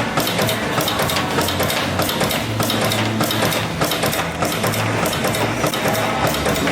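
Rapid, dense knocking and clicking of equipment at work on a cosmetics factory floor, over a low steady hum.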